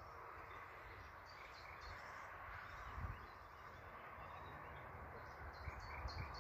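Faint outdoor ambience: a small songbird chirping in short quick runs of high notes, once about a second in and again near the end, over a steady low hiss.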